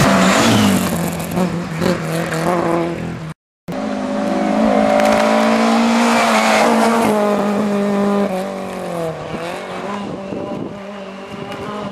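Rally hatchback's engine revving hard as the car passes at speed, broken by a brief silent gap about three seconds in. After the gap the engine holds a high, steady note, then the revs fall away and it fades about nine seconds in.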